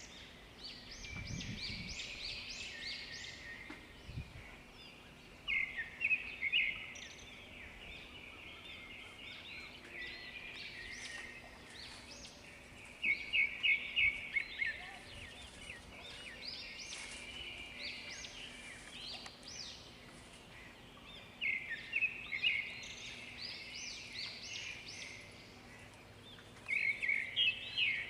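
Outdoor birdsong: a bird repeats a loud phrase of quick, high notes about every seven or eight seconds, with softer chirping between.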